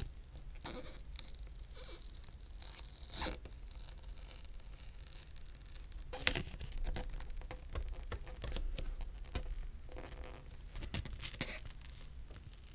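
Playing card slid under the back glass of a Samsung Galaxy S23 to cut through its adhesive: scraping and tearing with scattered clicks, the sharpest about six seconds in.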